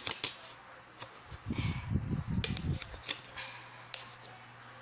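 Small knife cutting a lemon on a plate: sharp clicks of the blade tapping the plate every second or so. A louder, low rumbling noise comes for about a second in the middle.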